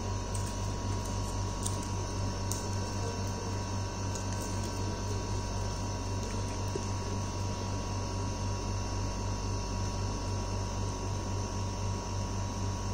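Steady low electrical hum with a thin high whine held on one note, unchanging throughout. A few faint light clicks in the first few seconds.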